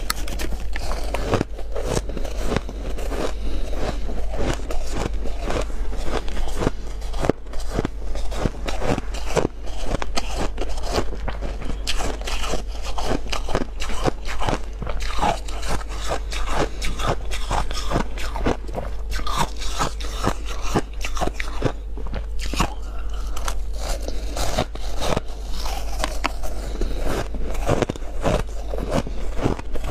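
Close-miked biting and chewing of chunks of freezer frost: dense, crackly crunches one after another, with a steady low hum underneath.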